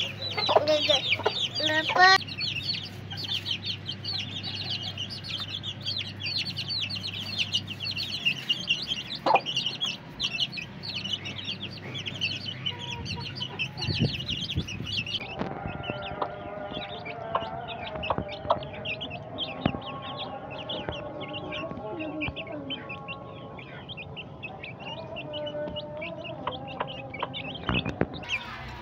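A flock of young Aseel chicks peeping busily and almost without pause, with a hen clucking among them. About halfway through, lower, longer calls join the peeping.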